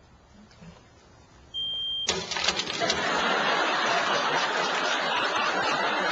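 A smoke detector gives one short high chirp about a second and a half in. Right after it, a studio audience bursts into loud, sustained laughter and applause.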